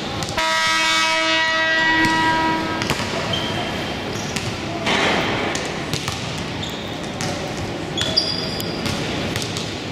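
A gym scoreboard horn sounds for about two and a half seconds near the start as one steady buzzing tone. After it, basketballs bounce and sneakers give short high squeaks on the court, with crowd chatter echoing in the hall.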